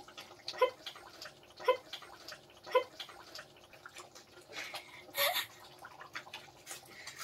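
Quiet, muffled laughter from behind a hand: a few short giggles about a second apart, then a louder breathy burst of laughter about five seconds in.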